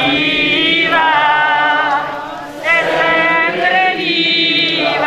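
A group of pilgrims singing a slow religious chant, with long drawn-out notes in phrases and a short break about halfway through.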